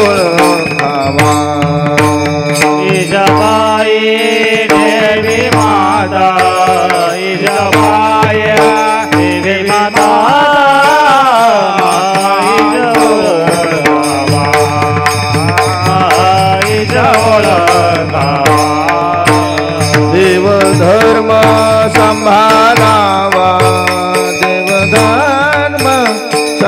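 Marathi kirtan music: a singer's long, bending melodic line over a steady drone, with brass taal hand cymbals clashing in a steady rhythm.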